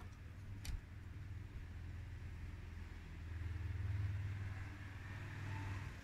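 Low background rumble that swells to its loudest about four seconds in and then eases, with one sharp click just under a second in.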